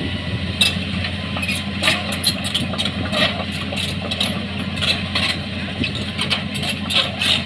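Excavator's diesel engine running steadily under load, with frequent short clanks and rattles of metal and rock from about half a second in.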